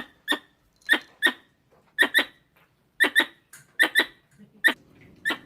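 Small squirrel giving short, sharp squeaky chirps, mostly in quick pairs, about once a second.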